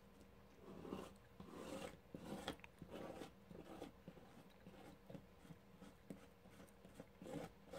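Palette knife spreading and scraping modeling paste over a plastic stencil on cardstock: a series of faint, irregular scraping strokes.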